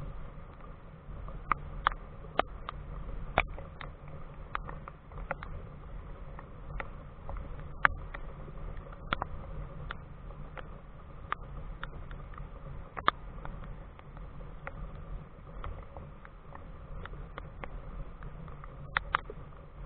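Water drops tapping irregularly on or near the camera, making sharp light ticks about once or twice a second over a steady low rumble.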